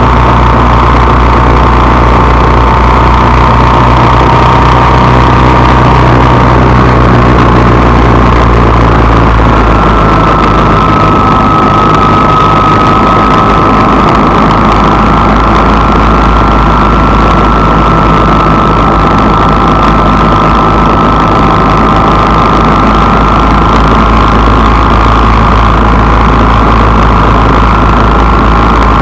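Vehicle engine running steadily, a constant low drone with a high whine on top that shifts up slightly about nine seconds in.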